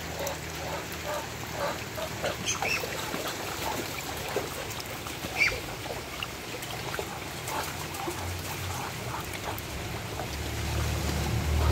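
Muscovy ducks dabbling and wading in shallow trickling water, with many small splashes and clicks and a few short, soft calls. A low rumble swells near the end.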